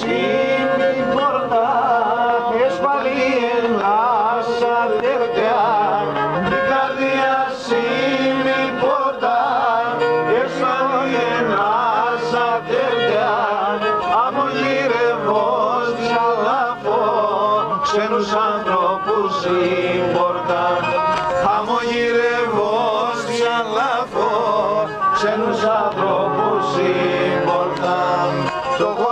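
Pontic lyra (kemençe) being bowed, playing a Pontic folk tune on several strings at once without a break.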